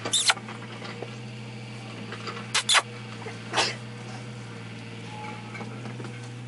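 Young Šarplaninac puppies squeaking and yelping in play: a short high squeal at the start, two quick squeaks together a little before three seconds and one more about a second later, over a steady low hum.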